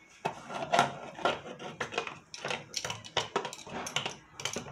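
Pressure cooker lid being twisted shut on the pot, metal clicking and scraping against the rim in a string of short, irregular knocks.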